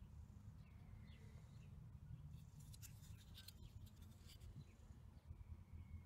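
Near silence over a low room rumble. Faint clicks and scratches, from fingers handling a small plastic battery holder, come from about two and a half to four and a half seconds in, with a few faint short high chirps before and after.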